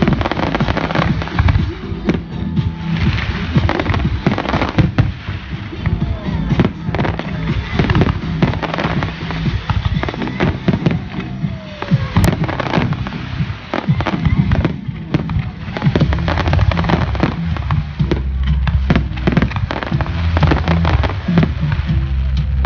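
Fireworks going off in rapid, continuous bangs and crackles, with a few falling whistles about halfway through, over loud music with a steady bass line.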